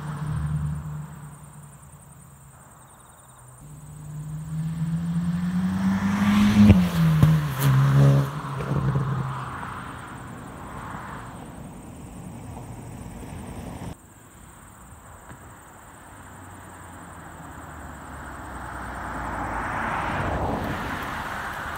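Hyundai i20 N's 1.6-litre turbocharged four-cylinder accelerating up the road, its note rising, then dropping at a gearchange about seven seconds in, and fading. Later the car approaches and its sound grows steadily louder near the end.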